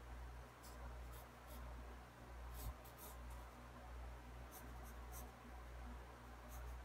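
Pencil lead scratching on sketchbook paper in short, faint strokes, coming in small clusters with pauses between. A steady low hum runs underneath, and there is one soft bump a little under three seconds in.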